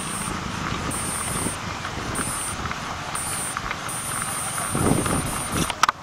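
Passenger train pulling away down the line: steady rumble and rattle of its coaches' wheels on the track, with faint clicks. The sound swells about five seconds in and changes abruptly just before the end.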